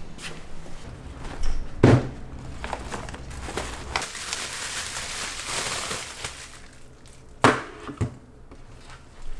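A few sharp mechanical clicks with smaller ticks and handling noises between them; the loudest come about two seconds in and twice near the end. A short stretch of soft hiss falls in the middle.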